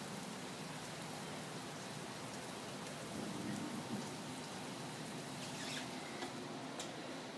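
Steady storm rain falling, an even hiss of rain with a few faint ticks of drops in the second half.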